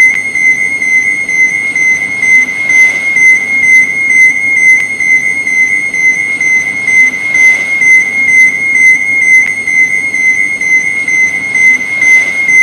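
Electronic overload warning alarm: a continuous high-pitched beep tone, pulsing rapidly in loudness without a break.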